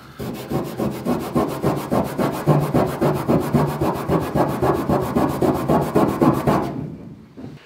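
Rapid back-and-forth rubbing by hand on the painted steel body panel of a 1966 VW bus, scrubbing through layers of old paint to expose the original finish. The strokes are quick and even and stop about seven seconds in.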